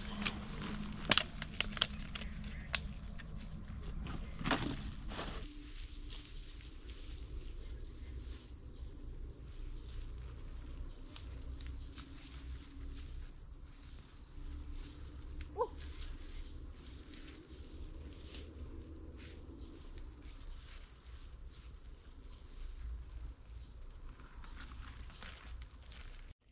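Forest insects shrilling in a steady, high-pitched drone; about five seconds in it switches abruptly to a higher pitch and carries on unbroken. A few sharp clicks in the first few seconds.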